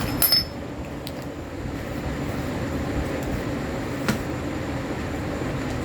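A sharp metallic clink with a brief ring just after the start, then a few light knocks of metal on metal, over a steady low drone.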